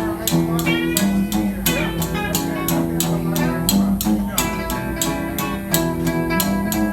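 Instrumental break of a rockabilly song: guitar over bass and a steady drum beat.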